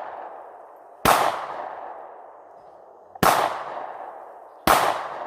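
Handgun shots fired one at a time, three in a row about one and a half to two seconds apart, each sharp crack trailing off in a long echo.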